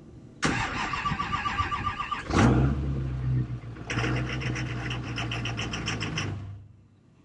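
Common-rail diesel truck engine cranked on the starter for about two seconds; it catches, runs briefly with a rhythmic clatter, and is shut off after about four seconds. This is the first start after a new 10AN fuel feed line to the CP3 injection pump.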